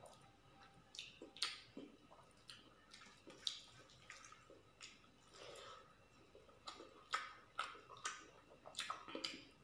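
Fingers mixing rice and chicken curry on a steel plate: faint, irregular wet squishes and small clicks.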